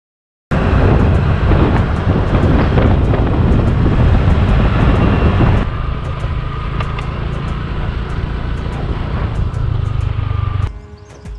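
Two-wheeler riding on a dirt track: engine running under heavy wind buffeting on the microphone. It starts abruptly, settles into a steadier low hum about halfway through, and drops away sharply near the end.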